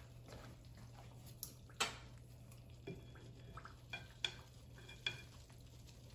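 Metal kitchen tongs clicking and clinking against a skillet while picking up fried tilapia fillets: a handful of sharp clicks, the clearest ringing briefly between about four and five seconds in, over a faint low hum.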